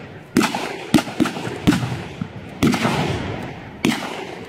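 Rifles firing blank rounds in a mock battle: about six single shots at irregular intervals, each followed by a long echoing tail.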